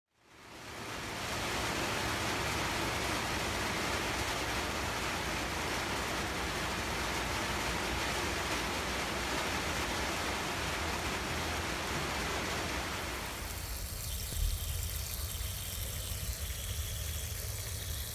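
Water running out of a rain-barrel system's PVC drain pipe onto gravel: a steady rushing hiss. About 13 seconds in it changes to a thinner, higher splashing trickle, with a low rumble underneath and a single bump shortly after.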